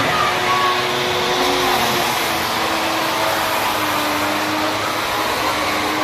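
Steady, loud whirring rush of an electric motor machine like a vacuum cleaner, with a faint wavering hum under it.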